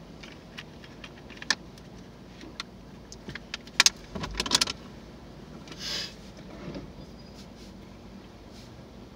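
A drink container being handled inside a stationary car: a run of sharp clicks and crackles, loudest about four seconds in, then a short hiss about six seconds in, over the car's steady running.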